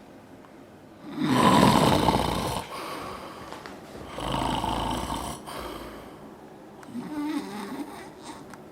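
A man snoring loudly in his sleep: a harsh, rough snore about a second in, another a little after four seconds, then a softer wavering, whistly snore around seven seconds.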